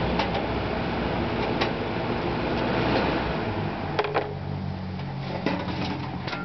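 Vintage Toastmaster 12-inch box fan running: a steady rush of air over a low motor hum, with a few sharp clicks of handling. About four seconds in, a double click comes and the air rush drops, leaving mostly the hum.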